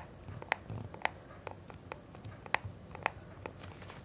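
LG Wing swivel screen creaking, a series of short sharp clicks, the clearest about half a second apart, close to the microphone. The owner puts the noise down to a small gap that has worn open over time in the spring-loaded hinge mechanism, a design flaw of the phone.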